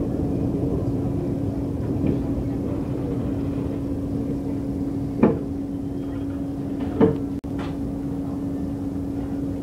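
Rumble of an MBTA Orange Line subway car rolling along a station platform, heard from inside, with a steady hum. Two sharp clunks sound about five and seven seconds in.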